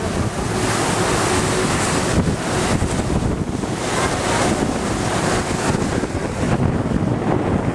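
Wind buffeting the microphone over the steady rush of white water churned up along a moving ferry's hull.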